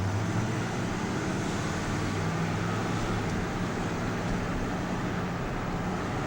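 Steady engine and road noise of a car being driven, a low even hum with no distinct events.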